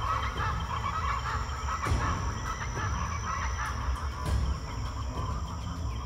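Birds calling over a steady, high insect drone and a low rumble. The bird calls are busiest in the first two seconds and then thin out.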